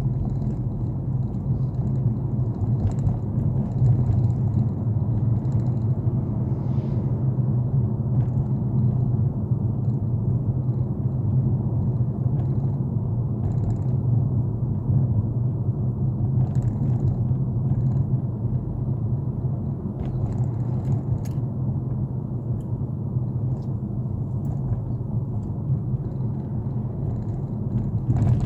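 Steady low rumble of a car's engine and tyres, heard from inside the cabin while driving, with a few faint clicks or rattles now and then.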